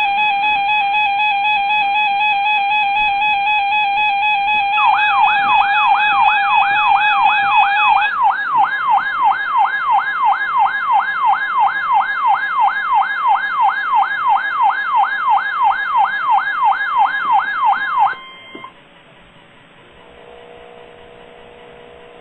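Electronic alert tones of an Emergency Alert System test broadcast. A steady, buzzing multi-tone alert signal is joined about five seconds in by a wailing tone that sweeps up and down about two and a half times a second. Both cut off suddenly about eighteen seconds in, leaving faint hiss.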